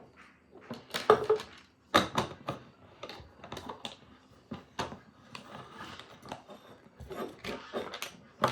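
A keychain being handled and freed from its packaging: irregular sharp plastic-and-metal clicks and clacks with scratchy rustling in between.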